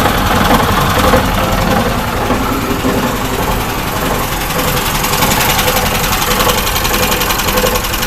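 Car engine idling with a recurring knock carried through the driveshaft between engine and gearbox. The owner cannot place its source: it seems to sound at the crankshaft pulley, along the shaft and at the rear U-joint alike, and he hears it only at idle.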